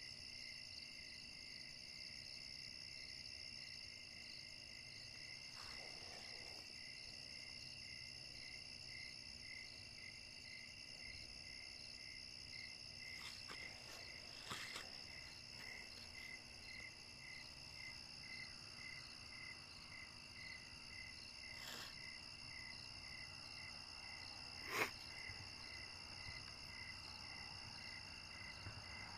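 Faint night chorus of crickets: a steady high trill over a lower chirp that repeats at an even pace. A few clicks sound now and then, the sharpest about 25 seconds in.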